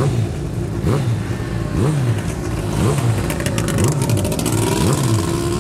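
Racing sidecar engines being blipped, the revs rising and dropping back about once a second. A brief quick rattle of clicks comes about halfway through, and near the end an engine holds a steadier note.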